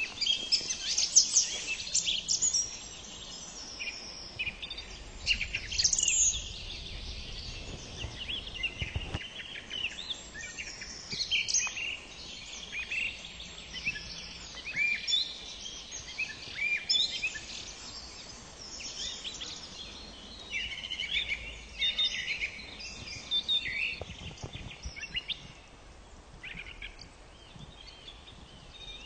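Song thrush singing from a treetop: a run of short, varied whistled and chirping phrases, loudest in the first few seconds and growing fainter toward the end.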